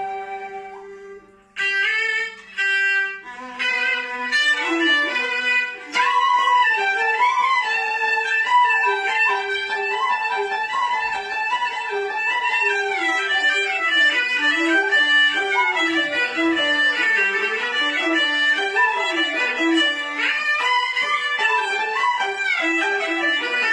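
Cantonese instrumental music: a held note fades out, then after a short break a bowed string instrument leads a lively, quickly moving melody over accompanying instruments.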